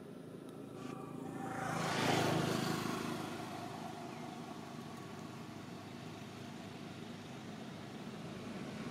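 A motor vehicle passing by on a road: its engine and tyre noise swell to a peak about two seconds in, then slowly fade away. Another vehicle begins to approach near the end.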